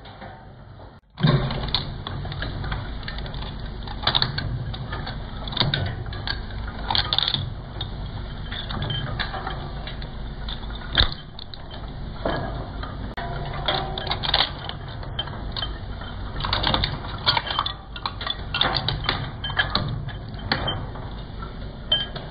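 Twin-shaft shredder running, its interlocking steel cutter discs turning and grinding small pieces with irregular cracks and crunches. The noise starts abruptly about a second in.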